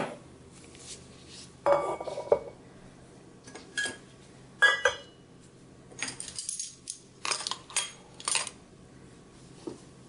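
Metal kitchenware set down on a wooden chopping board: a copper measuring cup and a ring of metal measuring spoons knocking and clinking, in a string of separate clatters, some ringing briefly.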